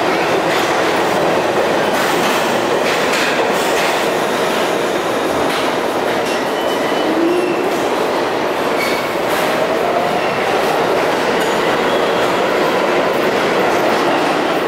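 New York City subway train running along the platform in an underground station: a loud, steady rumble with wheel clatter, a few faint wheel squeals, and a rising whine about two-thirds of the way through.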